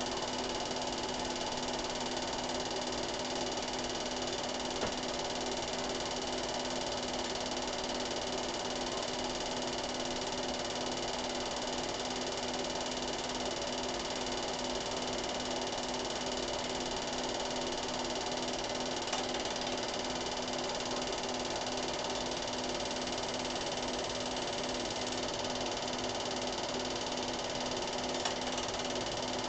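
Cine film projector running: a steady mechanical whirr with a constant hum.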